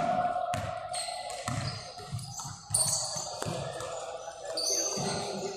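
A basketball being dribbled on a hard court: short low bounces, about two a second, with high squeaks near the end.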